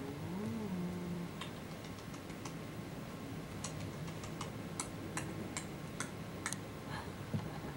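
A baby sucking on his fingers: irregular small wet clicks and smacks, after a short gliding baby vocal sound in the first second.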